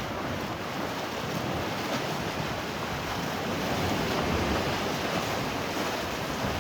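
Steady rushing noise of wind on the microphone and waves washing on the lakeshore.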